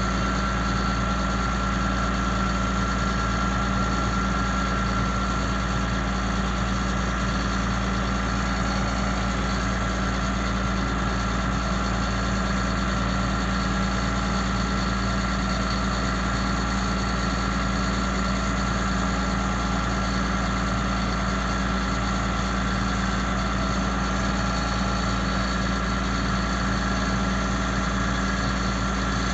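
The Caterpillar diesel of a 2005 Ford F750 bucket truck running steadily, driving the hydraulics as the Altec TA40 boom is moved. A steady high tone sits over the engine note.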